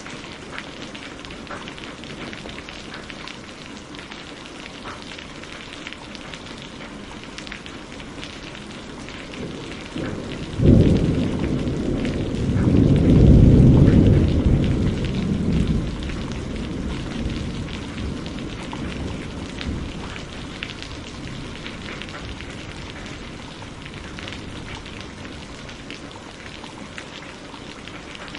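Steady rain falling, with a clap of thunder about ten seconds in: a sudden crack followed by a low rumble that swells and then slowly dies away over several seconds.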